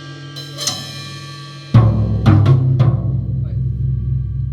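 Music with a drum kit and bass: soft held tones, then about two seconds in the bass and drums come in loudly with a few sharp drum hits.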